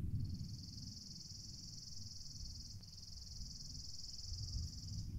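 A high, continuous insect trill lasting nearly five seconds, with a brief break a little past halfway, over a faint low rumble.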